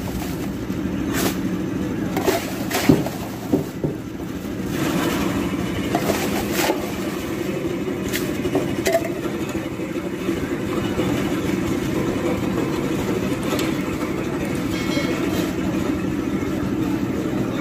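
A steady low rumble of market background noise, with scattered sharp clicks and knocks as crushed ice and banana leaves are handled while a fish box is packed.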